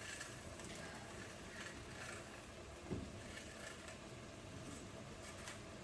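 Faint kitchen noise during cooking, with one soft low thump about three seconds in.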